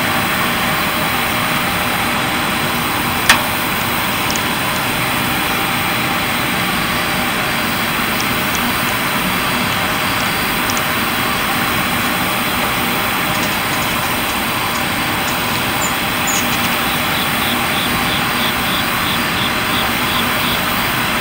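Steady rushing background noise, with a single sharp click about three seconds in and a faint run of short high pips near the end.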